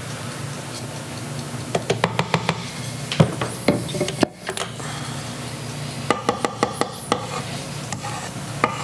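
A spatula scraping batter off a stand mixer's beater and knocking against it and the stainless steel mixing bowl: quick runs of light clicks and knocks, one about two seconds in and another around six to seven seconds, with a steady low room hum underneath.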